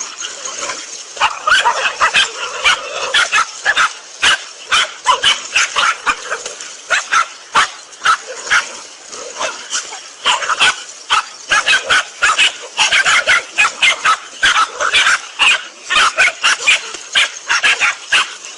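A dog barking rapidly and yelping, short sharp barks coming two or three a second almost without pause.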